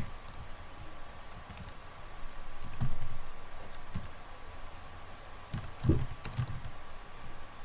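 Typing on a computer keyboard: a handful of separate, irregular keystrokes, bunched more closely together around six seconds in.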